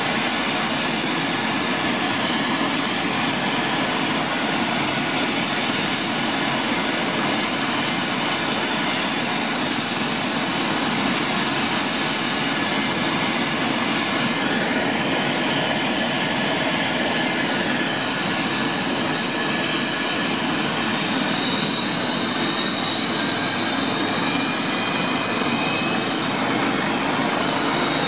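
Air ambulance helicopter running on the ground, its turbine engine and rotor turning: a steady high whine over a loud even rush.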